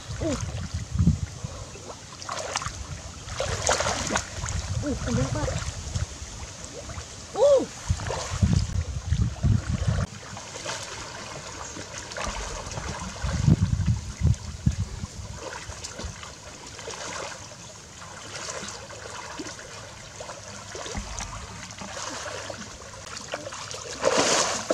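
Creek water sloshing and splashing irregularly as a person wades and swims through it.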